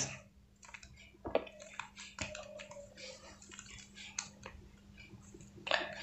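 Plastic 3x3 Rubik's cube being turned by hand: faint, irregular clicks as the front face is twisted counterclockwise.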